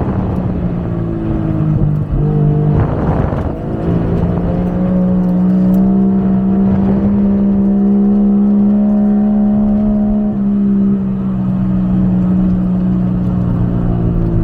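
1JZ straight-six car engine running hard under load, its pitch dropping and climbing again about two to three seconds in, then holding a steady high note before stepping down again near eleven seconds.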